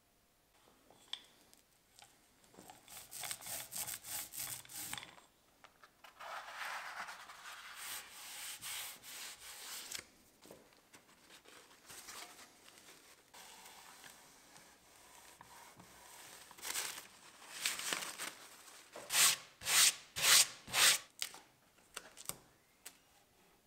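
Sandpaper rubbed by hand over wood in bouts of back-and-forth strokes: quick light strokes, then a longer stretch of scratching, and near the end a run of louder strokes about two a second.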